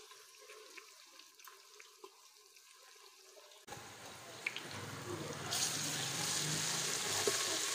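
Sliced onions and ginger-garlic paste frying in hot oil in a pressure cooker pot, sizzling as they are stirred with a wooden spoon. The sizzle cuts in suddenly about three and a half seconds in after near quiet, and grows louder and brighter about two seconds later.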